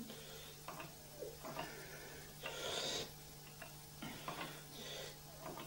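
Faint scattered clicks of laptop keys being pressed one at a time, with a soft breathy rush about two and a half seconds in, over a steady low hum.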